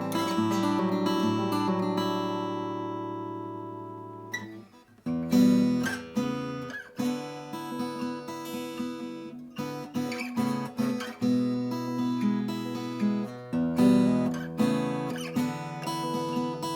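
Vintage acoustic guitar strummed: a chord is left ringing and fades away over about four seconds, then after a brief pause a rhythmic strumming pattern of chords starts up.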